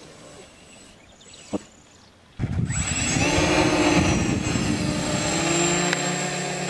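Electric motors and propellers of a large homemade four-motor RC airplane cut in loudly a little over two seconds in. They rise in pitch, then hold a steady whirring whine as the plane takes off.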